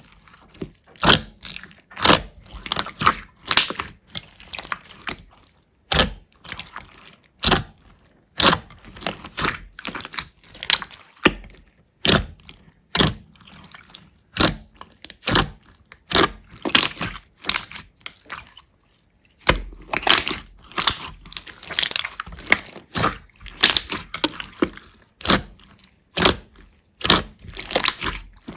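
Slime being squeezed and pressed by hand, giving irregular clusters of sharp crackling, popping clicks, with a short pause about two-thirds of the way through.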